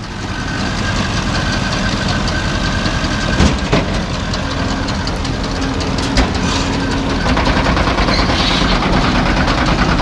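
Tractor engine running with a New Holland 658 round baler working behind it while the baler's tailgate is raised hydraulically to drop a finished bale. A steady hum joins about four and a half seconds in, and there are sharp knocks about three and a half and about six seconds in.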